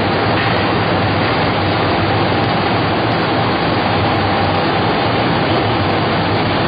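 Baby diaper production machine running: a steady, dense mechanical noise with a faint constant tone through it.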